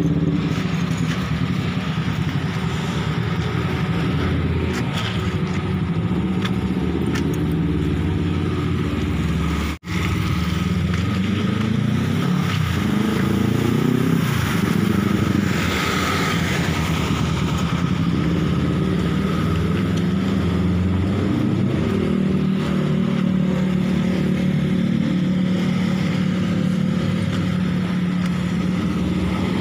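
Motorcycle engine running close by, its pitch rising and falling now and then as it is revved and eased off. The sound cuts out for an instant about ten seconds in.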